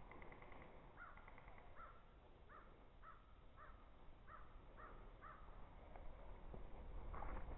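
Faint bird calling outdoors: a series of about eight short, repeated calls roughly half a second apart. A rustling noise builds near the end.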